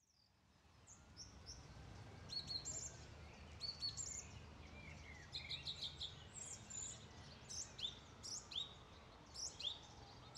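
Outdoor ambience fading in: small birds chirping repeatedly in short high calls over a low, steady background rumble.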